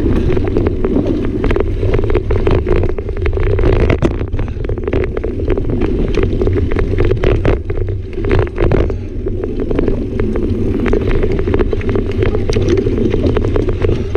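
Wind rumbling over a ride-mounted camera's microphone as a mountain bike rolls fast down a dirt singletrack, with frequent sharp clicks and rattles from the bike jolting over bumps.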